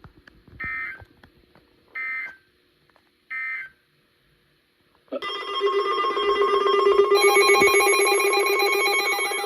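Three short electronic data bursts of Emergency Alert System coding, the end-of-message signal closing a broadcast warning. Then, about five seconds in, a loud electronic alert tone of several steady pitches, pulsing rapidly, which opens the next warning.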